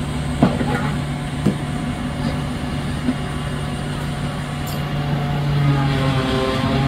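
A motor vehicle engine running steadily, with a few short knocks in the first couple of seconds. It grows a little louder near the end.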